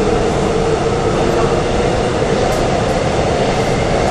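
Steady running noise heard from inside the cabin of a Korail 3000-series electric multiple unit travelling at speed through a tunnel: an even, loud rumble of wheels on rail and running gear.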